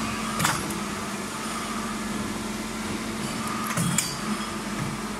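Tube-bending machine bending a metal tube: a steady motor hum, with a sharp metallic clack about half a second in and another just before four seconds as the die clamps and swings round.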